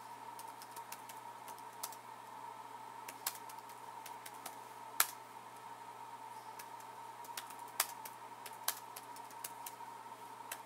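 Typing on a 2017 MacBook Air's laptop keyboard: sparse, irregular key clicks, one louder than the rest about halfway through, over a faint steady tone.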